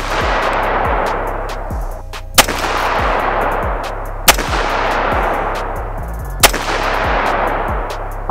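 Three single shots from a custom AR-style rifle with a 16-inch barrel and SureFire WarComp muzzle brake, fired slowly one at a time about two seconds apart while zeroing it. Background music with a steady beat plays underneath.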